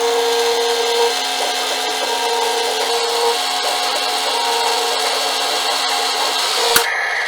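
Small electric motor and gearbox of a 1/14-scale RC forklift whining steadily while running, with a sharp click near the end.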